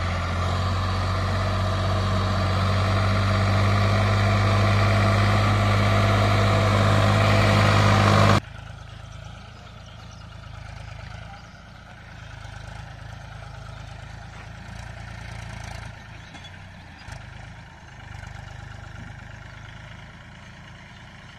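Sonalika DI 50 RX tractor's diesel engine running steadily close by while hauling a trolley loaded with potato sacks, growing louder as it nears. The sound cuts off abruptly about eight seconds in. After that, tractor engines run much more quietly at a distance.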